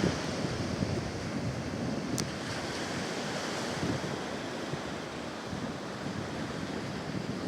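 Big ocean waves breaking and washing below a pier, with wind buffeting the microphone. A brief high tick about two seconds in.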